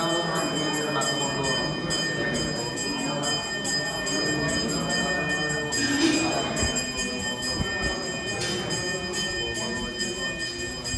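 A brass puja hand bell rung continuously with quick strokes, giving a sustained ringing, while priests chant mantras underneath.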